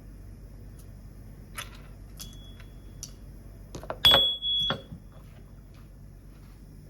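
Metal kitchenware clanking: a few light clicks, then a hard knock about four seconds in that rings with a short, clear high tone, and a second knock just after.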